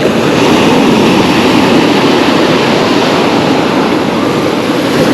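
Sea surf surging and breaking on the beach in a slightly rough sea: a loud, steady rush that swells over the first second.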